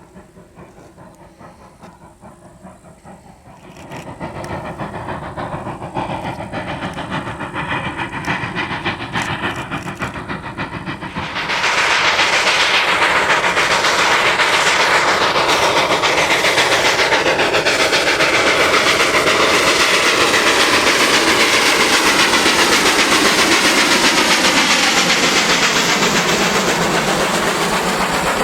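Denver and Rio Grande Western No. 315, a narrow-gauge 2-8-0 steam locomotive, approaching with a freight train and passing close by. Faint at first, it grows louder about four seconds in, then turns loud and steady from about eleven seconds in as the engine and its cars clatter past on the rails.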